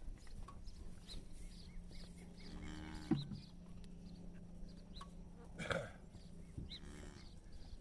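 Cattle mooing: one moo about two and a half seconds in and a shorter one near the end, with small birds chirping throughout.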